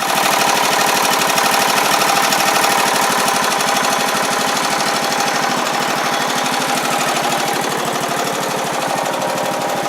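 The John Deere LA125 riding mower's single-cylinder Briggs & Stratton Intek engine running steadily with a rapid, even firing beat. It is running right after a sheared flywheel key was replaced, which had made it run lean and hot.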